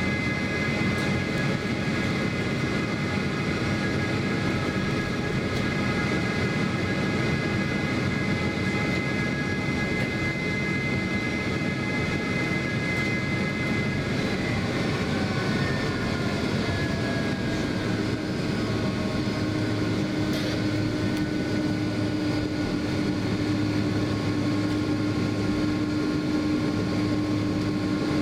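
Boeing 767 cabin noise while taxiing: the jet engines' steady rumble and whine at low thrust. About halfway through, a high whine fades and the tones glide down, then a lower steady tone comes in.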